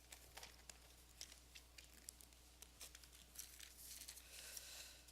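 Faint rustle and crackle of Bible pages being turned by the congregation, with scattered short crinkles that thicken into steadier page-flipping about three and a half seconds in.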